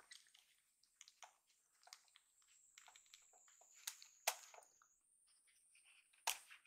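A kitten suckling at a small nursing bottle of milk: faint, irregular wet smacking clicks, with a few louder clicks about four seconds in and again near the end.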